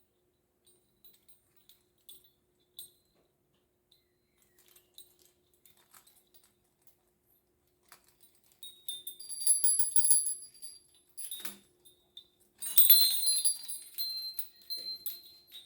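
Small metal chimes tinkling and jingling in light clusters with high ringing notes, starting about halfway in after a stretch of near quiet with a few faint clicks.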